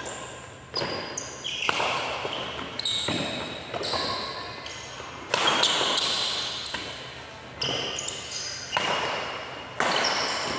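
Badminton rally in a large echoing hall: rackets striking the shuttlecock about ten times at irregular intervals, each crack trailed by a long reverberant decay.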